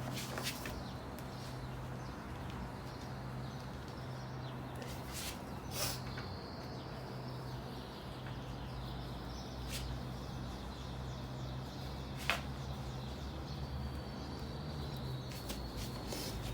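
A lug wrench clicking against a car wheel's lug nuts a handful of times, spread out, as a tight nut is worked loose, over a steady low hum. Faint birds chirp in the background.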